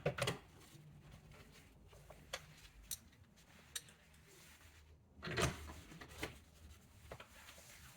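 Faint, scattered clicks and light handling sounds of a hand screwdriver tightening the T25 screws that hold a car door speaker in the door, with a brief rustle about five seconds in.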